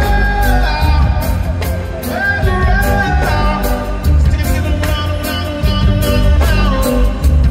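Live reggae band playing with heavy bass and a steady drum beat, and a male singer holding long, sliding sung notes over it.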